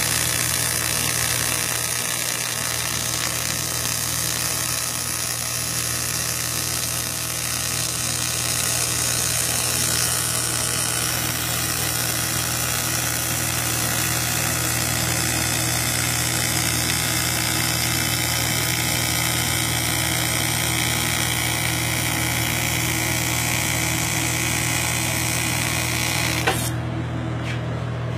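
AC TIG welding arc on thin aluminium sheet, a steady buzzing hiss, laying a quick first fusion pass along the seam without filler rod. The arc cuts off with a click about 26 seconds in, leaving a steady low hum.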